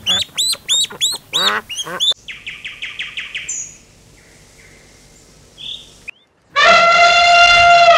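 Ducklings peeping rapidly in a dense string of high chirps, stopping about two seconds in. A short fast rattling trill follows. Near the end comes the loudest sound, an elephant trumpeting: one long brassy call that drops in pitch as it ends.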